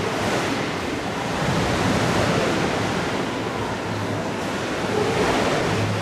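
Wave-pool water surging and splashing in a steady rushing wash, with a low hum underneath.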